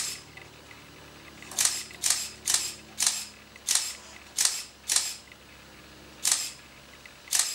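DSLR camera shutter firing again and again, about ten sharp clicks, triggered by the infrared remote as the spinning photo tray turns, taking shots of the object from different angles. The clicks come at first about every half second, then further apart toward the end.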